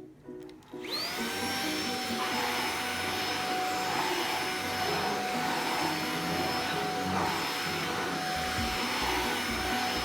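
Xiaomi Mi Handheld 1C cordless stick vacuum switching on about a second in: its motor whine rises quickly, then settles into a steady high-pitched run with rushing air as it is pushed over a thin kilim-style rug.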